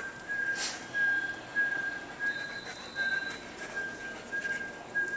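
German Shepherd whining, a run of short high-pitched whines at a steady pitch, about two a second.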